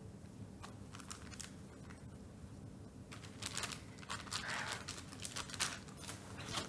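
A plastic food packet crinkling as it is handled, with a few light clicks early and denser rustling in the second half, over a faint low hum.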